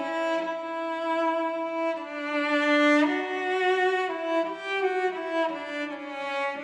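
Bowed cello playing slow, long-held notes, changing pitch every second or few.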